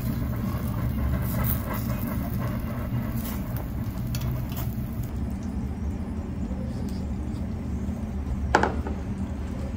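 Steady low rumble of background noise, with one short sharp tap near the end.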